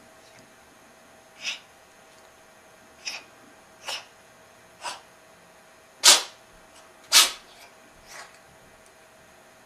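A domestic cat sneezing seven times in a row, short sharp sneezes about a second apart, the fifth and sixth the loudest.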